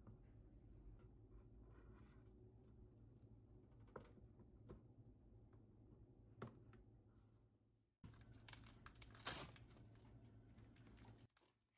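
Faint handling sounds: a few light clicks and taps, then a brief louder rustle of paper or plastic wrapping about nine seconds in.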